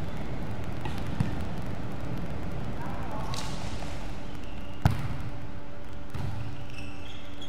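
A volleyball being hit during play in a large gymnasium: a light smack about a second in and a sharper, louder one about five seconds in, over the steady hum of the echoing hall. Short high squeaks, typical of shoes on the court floor, come and go.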